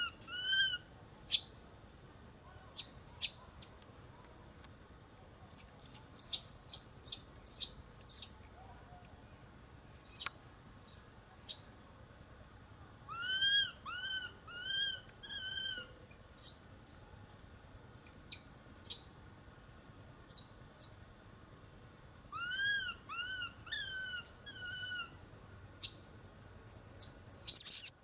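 High-pitched animal calls. Runs of four or five short, arching calls repeat twice, and many brief, very high thin chirps come in between.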